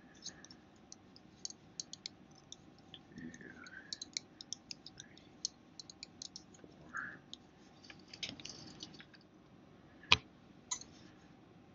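Metal double-pointed knitting needles clicking and tapping against each other in quick, irregular ticks as stitches are knitted in the round, with one louder click about ten seconds in.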